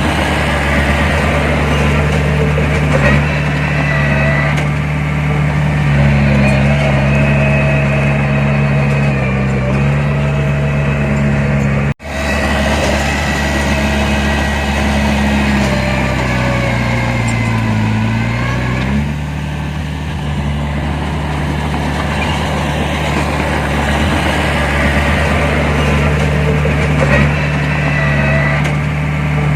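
Heavy diesel engine of earthmoving machinery running steadily, with a momentary cut-out about midway. A little past the middle its pitch sags for a couple of seconds, then recovers.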